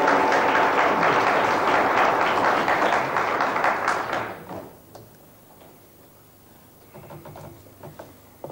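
Studio audience applauding, dying away about four and a half seconds in. Then faint taps and scratches of chalk on a blackboard.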